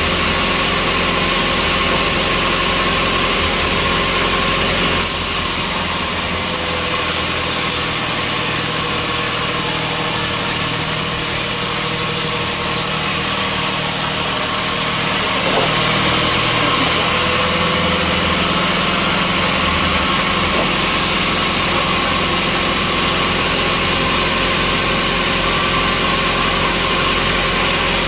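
Sawmill machinery running steadily: a loud engine-driven hum under a dense hiss. The sound shifts abruptly about five seconds in and again about halfway through.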